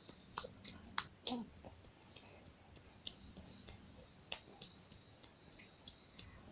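Quiet room with a steady, high-pitched pulsing tone throughout, scattered soft clicks, and a brief falling vocal sound from the baby about a second in.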